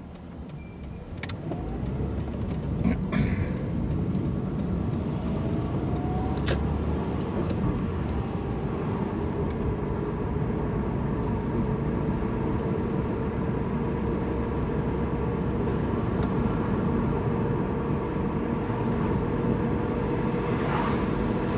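Manual car pulling away and driving, heard from inside the cabin: engine and road noise build over the first few seconds into a steady drone. A few sharp clicks come in the first several seconds.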